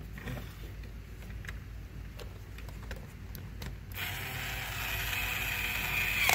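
Kid Nitro toy power drill's small battery motor and gears running as it drives a screw to fix a wheel to the toy car. The motor starts about four seconds in and gets louder, after a few light clicks.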